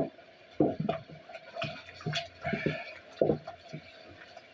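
Water splashing and sloshing in a sink in irregular bursts.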